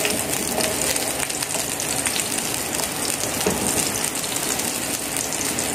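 Sliced red onion sizzling steadily in a little hot oil in a ceramic-coated frying pan, stirred with a wooden spatula.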